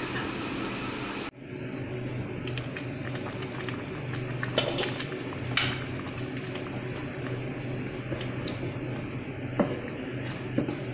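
Wooden spoon stirring a pot of thick, simmering lentil daal: soft squelching and scattered small pops and ticks, over a steady low hum.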